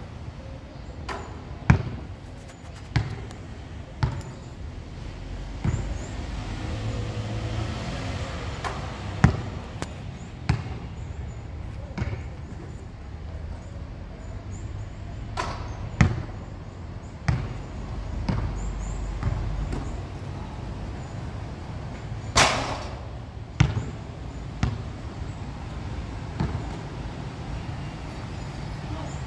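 Basketball bouncing on a hard court floor and shots hitting the hoop: a sharp thud every second or two, irregularly spaced. About two-thirds of the way through comes one louder, longer noisy burst.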